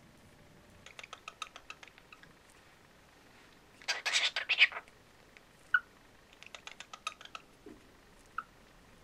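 A cockatiel's quiet chattering: runs of rapid clicking, a short harsh burst of chatter about four seconds in, and two brief high chirps.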